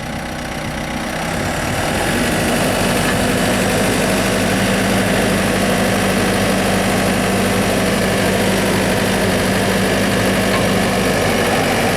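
Diesel engine of a New Holland LB75.B backhoe running steadily at idle, growing louder over the first two seconds and then holding an even hum.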